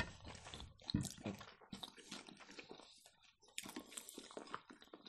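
Close eating sounds of sushi rolls being chewed: quiet, irregular mouth noises and small clicks.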